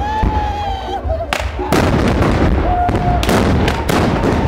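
Black-powder muskets fired in a carnival mock battle: a run of loud shots, several close together in the second half. A long held high call sounds at the start and again about three seconds in.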